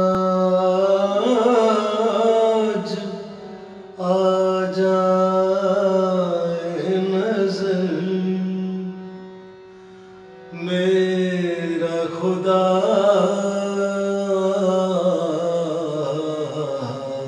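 Indian light-classical music: long held, gently bending melodic notes over a steady drone, in three phrases, with a quieter dip about two-thirds of the way through.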